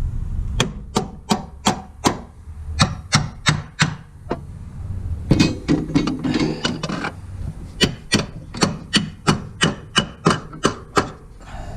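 Hammer tapping a new upper control arm into place on a car's front suspension, in quick strikes about three a second, in two runs. A stretch of metal scraping in the middle breaks them up.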